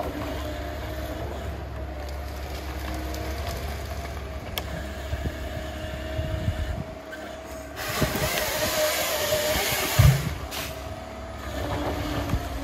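Tigercat 822D tracked harvester with a 570 harvesting head working a felled stem: steady engine and hydraulic drone, then from about eight seconds a louder, harsh rushing noise from the head for about two and a half seconds, ending in a sharp heavy thud.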